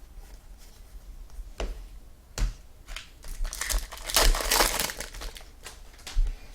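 Foil wrapper of a trading-card pack crinkling as it is torn open, loudest midway through, with a few sharp clicks of cards being handled.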